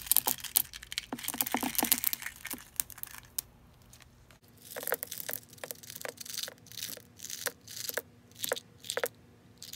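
Small tumbled turquoise stones clattering and clicking as they are tipped from a small glass cup into a resin-filled pyramid mold: a dense rattle for about the first three seconds, then scattered clicks as stones are dropped in by hand in small handfuls.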